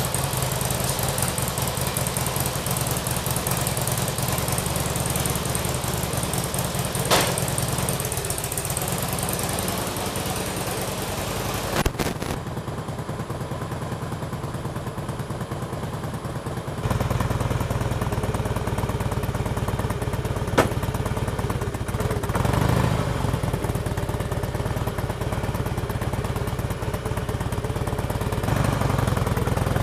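Harley-Davidson motorcycle's V-twin engine idling steadily. Its tone shifts about twelve and seventeen seconds in, and a few sharp clicks come through.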